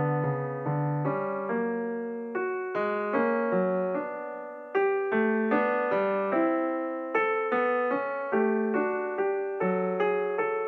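Background piano music: a slow melody of single struck notes, about two a second, each fading away.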